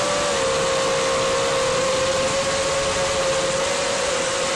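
FPV quadcopter's electric motors and propellers whining steadily in flight, heard from the onboard camera, with a rush of air over the props; the pitch dips and rises slightly as the throttle changes.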